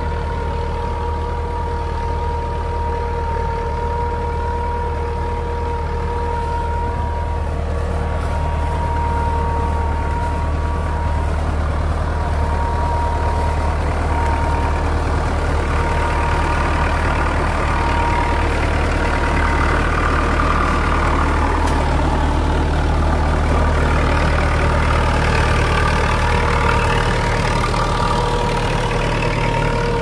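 IMT 565 tractor's diesel engine running steadily under load while pulling a plough, with a steady whine above the low engine drone. It gets slightly louder past the middle.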